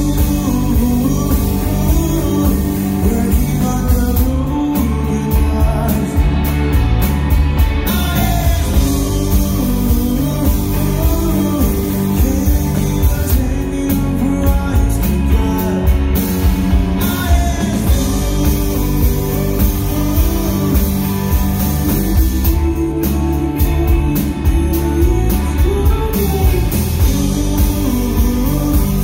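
Small rock band playing live: electric guitar, drum kit and keyboard with a sung lead vocal.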